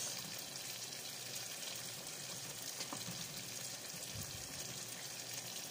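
Chicken pieces sizzling and simmering in a spiced sauce in a pot on a gas stove, giving a steady hiss, with a few faint knocks of a wooden spoon stirring the pot.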